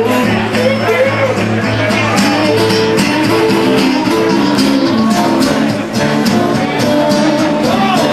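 Live blues on guitars with no singing: a steady strummed rhythm under a lead line of bent notes.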